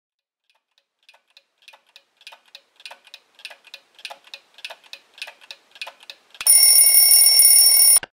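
Wind-up alarm clock ticking steadily, fading in louder over several seconds. Its alarm then rings loudly for about a second and a half and cuts off suddenly as it is switched off.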